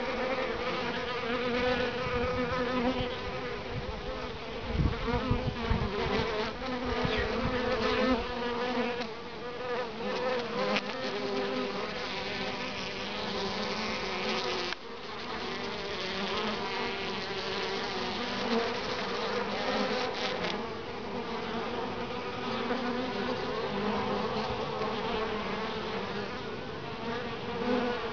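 Honeybees buzzing in flight close by, a steady hum that wavers in pitch as several bees come and go. A few low thumps about five seconds in.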